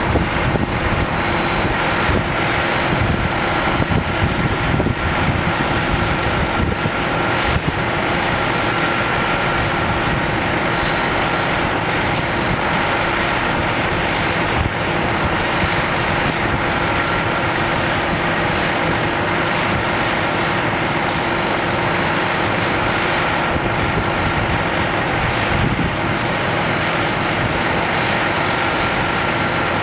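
Steady jet airliner turbine noise from a Boeing 787-8: a constant rush with a few steady whining tones held throughout, mixed with wind buffeting the microphone.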